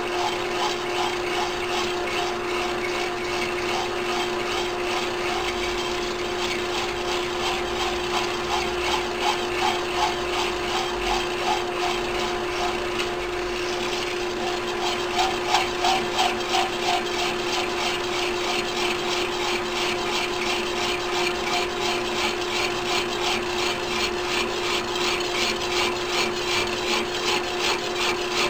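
Hand hacksaw cutting through a metal bar held in a lathe chuck, in steady back-and-forth strokes that grow louder about halfway through, over a steady hum.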